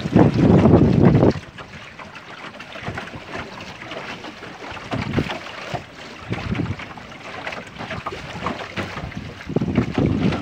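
Wind buffeting the microphone in gusts, loudest for about the first second and again near the end, over a steadier hiss of a small sailboat moving through the water under sail.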